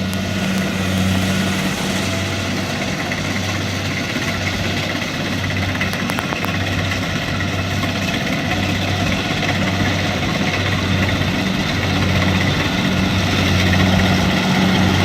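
Kubota DC-70 rice combine harvester's diesel engine and machinery running steadily, a low drone under a broad mechanical din.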